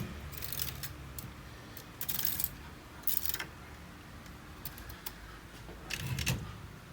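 Vintage Olivetti manual typewriter's metal mechanism clacking and rattling as its keys and levers are worked: about five separate short metallic clatters.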